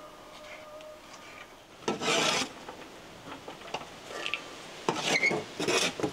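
Short rasping scrapes, one loud stroke about two seconds in and a few more near the end.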